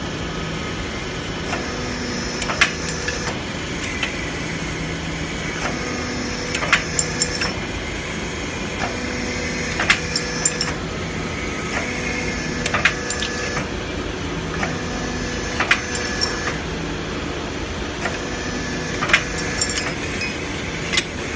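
Hydraulic notching machine running: the pump hums steadily, and a lower note comes in for a second or so about every three seconds as the ram works, with sharp metallic clicks and clanks from the die and tube.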